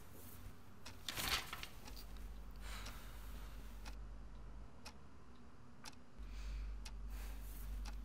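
A clock ticking steadily, about one tick a second. Fabric curtains rustle as they are handled, loudest about a second in and again near the end, over a low hum that comes and goes.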